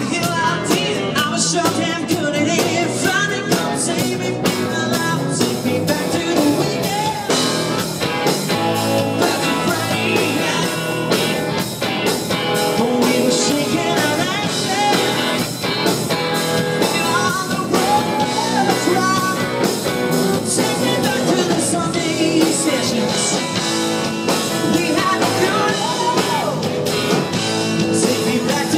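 Live band playing a song: a singer on lead vocals with electric guitars and bass guitar over a steady beat.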